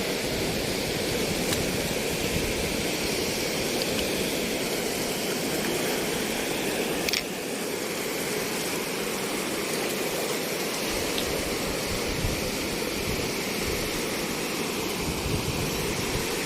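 Steady rushing of sea water and surf at the shore, with one brief click about seven seconds in.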